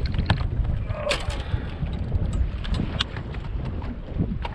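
Wind buffeting the microphone on a fishing boat as a low rumble, with a few scattered knocks and clatters.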